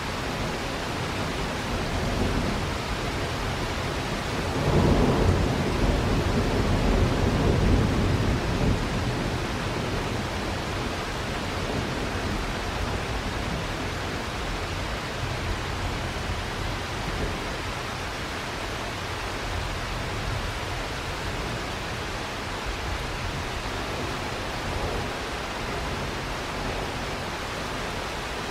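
Steady rain, with a roll of thunder rumbling in about five seconds in and dying away over the next few seconds.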